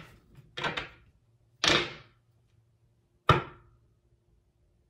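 Tarot cards being handled and set down on a table: three short, sharp slaps, the loudest about three seconds in.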